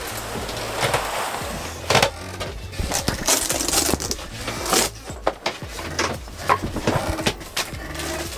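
Fabric rustling and scattered knocks and clicks as curtains and cloth covers are handled and taken down.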